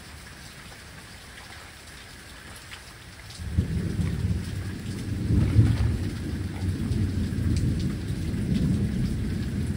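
Rain falling with a steady patter. About three and a half seconds in, a long low rumble of thunder rolls in suddenly, is loudest about two seconds later, and carries on under the rain to the end.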